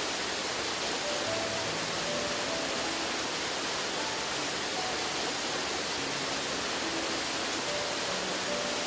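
Steady, even rush of falling water from a high waterfall, with soft background music notes faintly beneath it.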